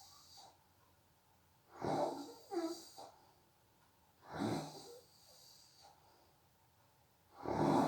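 A person snoring in sleep: three rough snoring breaths about two and a half seconds apart, some carrying a whistling tone that slides down in pitch, with quiet gaps between.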